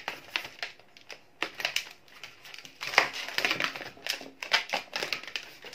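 Long latex modelling balloon being twisted and squeezed by hand, giving irregular rubbery squeaks and rubbing creaks in short bursts.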